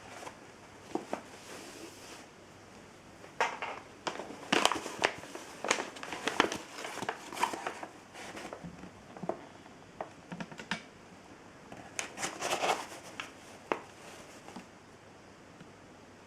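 Irregular clicks, knocks and crinkling of things being handled, in clusters, with no motor running.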